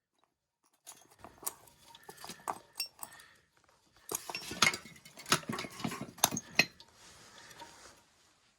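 Small metal engine parts and hand tools clinking and tapping against each other in an irregular series of sharp clicks and knocks, busiest from about four seconds in until shortly before the end.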